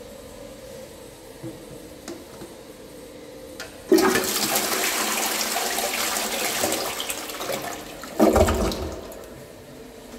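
INAX 306 toilet flushing. A loud rush of water starts suddenly about four seconds in and swirls through the bowl for about four seconds. It ends in a louder, deeper gurgle as the bowl empties, then dies away.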